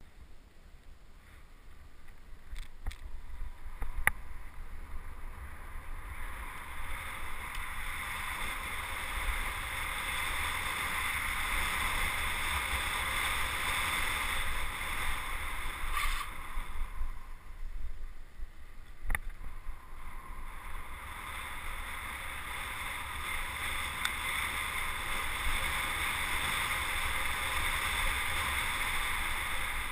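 Wind rushing over the microphone of a camera moving at speed. It builds over the first several seconds, eases for a moment past the middle and picks up again, with a few sharp knocks, the loudest about four seconds in.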